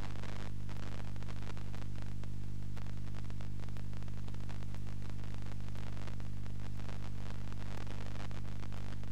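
Steady low buzz made of a stack of hum tones, with hiss and frequent irregular crackling clicks above it. This is the sound of a TV set's sound channel tuned to a weak 434 MHz amateur-television signal.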